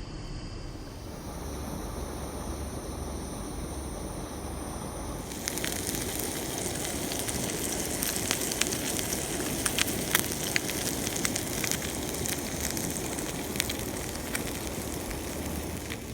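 Pork chops frying in a hot pan: a steady sizzling hiss that grows louder about five seconds in, with frequent sharp crackles and pops.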